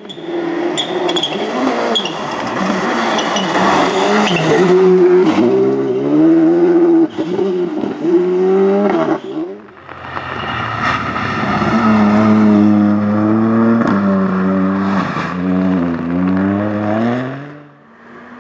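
Rally car engines at full throttle on a gravel stage, revving hard and changing up through the gears, the pitch climbing and dropping again and again. There are two separate passes, split by a short dip about ten seconds in.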